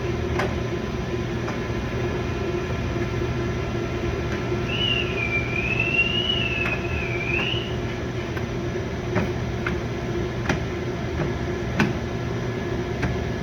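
Steady background hum with scattered sharp clicks and knocks from plastic car bumper parts being handled and snapped into place. A wavering whistled tone comes in about five seconds in and lasts about three seconds.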